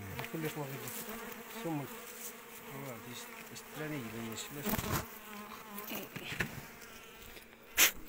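Honeybees buzzing close around an opened hive as the comb is cut out, the pitch wavering as the bees fly near. A single sharp, loud knock near the end.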